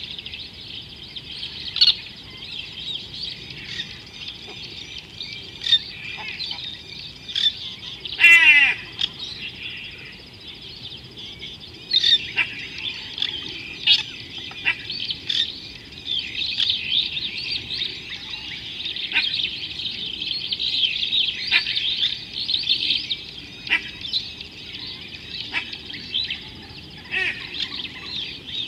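Dense chorus of many birds chirping and calling at a waterhole, with sharp short calls scattered through it and one loud, short call about eight seconds in.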